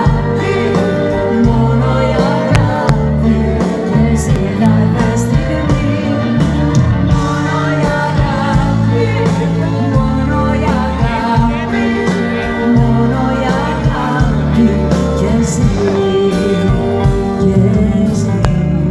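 A woman singing lead into a microphone over a live band, with an accordion among the instruments.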